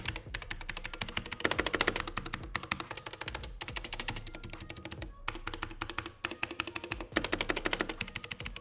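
Fast typing on a Gamdias Hermes P2A optical mechanical keyboard with Outemu switches: a dense stream of key clicks, broken by a few short pauses.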